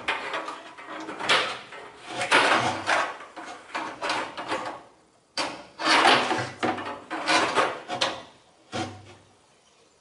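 Dishwasher drain hose being pulled through the sink cabinet, a string of rough rubbing and scraping noises with a few knocks against the wood. The sounds pause briefly about halfway and die away about a second before the end.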